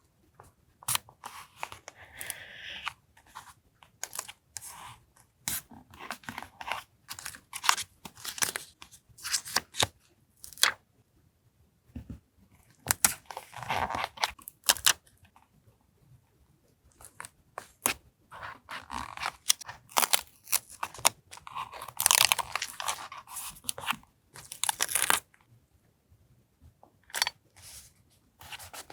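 Paper being handled for collage journaling: short crisp tears, crinkles and taps coming in clusters, with a few brief pauses.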